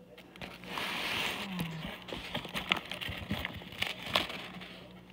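Chicken and rice frying in a pan: a sizzling hiss with scattered clicks and scrapes as a utensil stirs against the pan. The hiss swells about half a second in and fades near the end.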